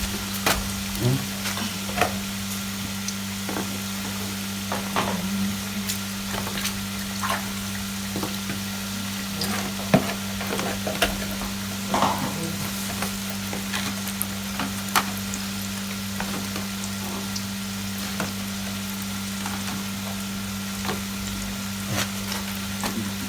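Dough snacks deep-frying in hot oil: a steady sizzle with scattered pops and clicks throughout, over a low steady hum.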